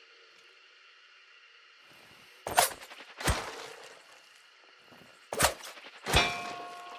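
Throwing knives striking, four sharp hits in two pairs about three seconds apart; the last hit rings on for about a second.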